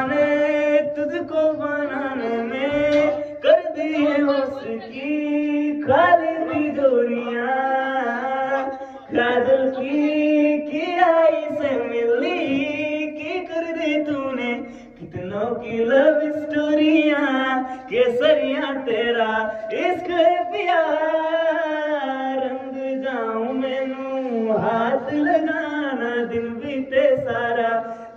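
A young man singing solo without instruments, a melodic song in long held phrases with gliding pitch.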